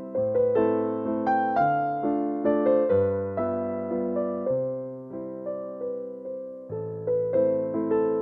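Background piano music: a gentle melody of notes struck about twice a second, each dying away, over held lower notes.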